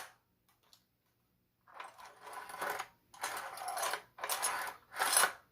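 An airsoft gun's action being worked by hand: four bursts of rapid mechanical clattering, starting nearly two seconds in.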